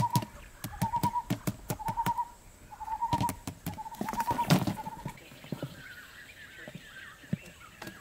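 Quail pecking at bait on a plastic lid, a rapid run of sharp taps, under a short bird call repeated about once a second. About four and a half seconds in there is a louder clatter as the lid tips, after which the calls stop and fainter, higher chirps follow.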